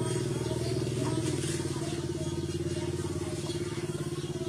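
An engine running steadily with a low, pulsing hum that slowly gets quieter.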